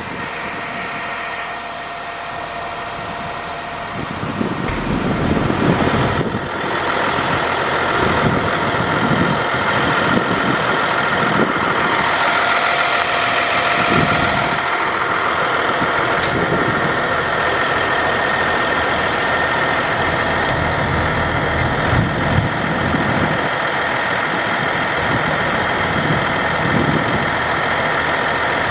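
A 2001 GMC C7500 digger truck's engine running steadily, getting louder about six seconds in, with a steady whine over it.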